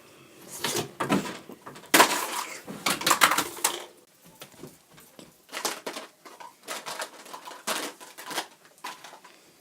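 Noisy, messy eating: irregular crunching and clattering in bunches, loudest about two to four seconds in and again in the second half.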